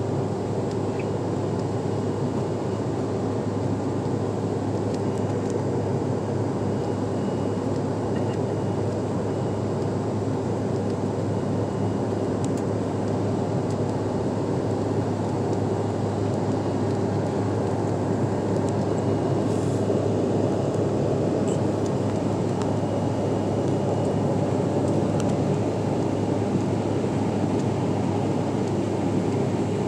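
Steady cabin noise of a CRJ-700 airliner in its climb after takeoff: the rush of air and the hum of its two rear-mounted General Electric CF34 turbofan engines, growing slightly louder about halfway through.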